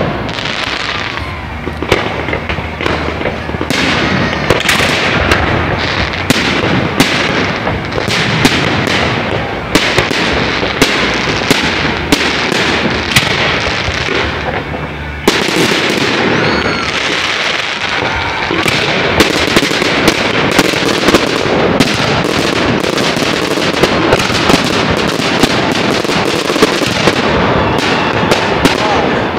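A public fireworks display: aerial shells bursting in a dense, continuous run of sharp bangs and crackling. The bangs thin out briefly just before a sudden loud burst about halfway through.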